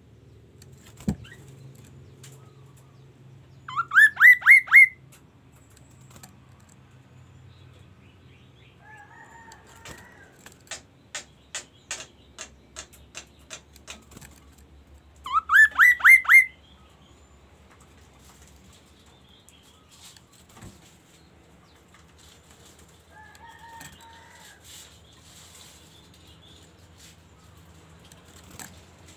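Caged laughingthrush singing: two loud rising whistled phrases, about four seconds in and again about fifteen seconds in. Between them come softer chattering notes and a run of sharp clicking notes.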